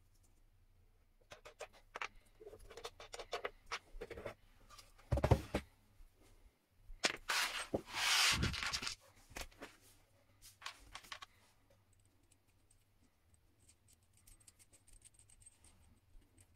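Hands handling workshop parts and pieces of wood: a run of light clicks and knocks, one sharp thud about five seconds in, and a scraping rush lasting about two seconds a little later, then a few more clicks.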